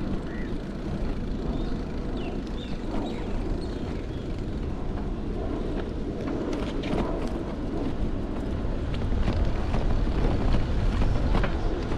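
Steady low rumble of a bicycle ride: wind buffeting the microphone and tyres rolling over brick paving. A few light clicks and rattles come in the second half, and it gets a little louder near the end.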